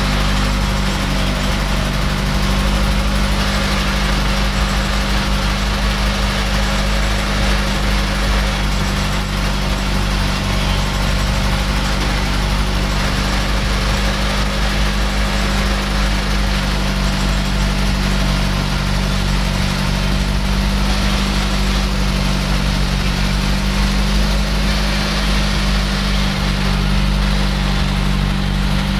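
Kempang ferry's inboard engine running steadily under way, a constant low drone with noise over the top.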